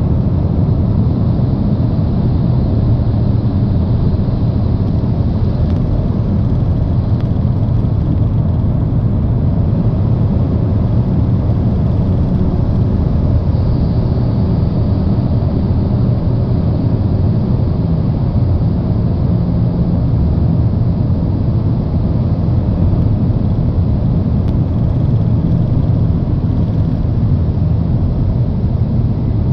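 Steady low rumble of a car driving through a road tunnel: tyre, engine and traffic noise heard from inside the cabin.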